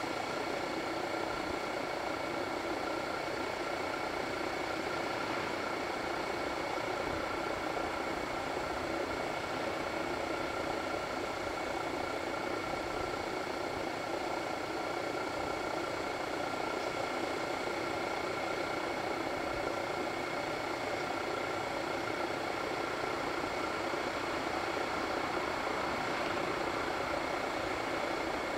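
A vehicle engine idling steadily, an even hum that does not change.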